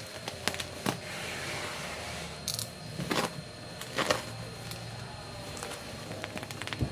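Scattered light clicks and clinks of small hard items being handled and set down while a box is unpacked, with a cluster of quick clicks near the end, over a steady low hum.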